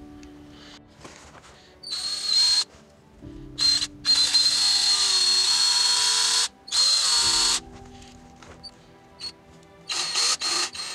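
DeWalt cordless drill motor run in several bursts with a high whine: a short one about two seconds in, a long run of about two and a half seconds in the middle, another short one right after, and a few quick blips near the end.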